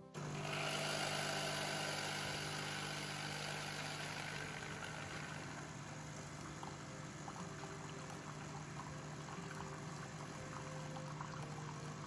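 Wonderchef Regalia espresso machine purging: its pump hums steadily while hot water and steam hiss out of the brew head and pour into a glass mug. The hiss starts suddenly and is loudest in the first couple of seconds, then eases into a steady pour.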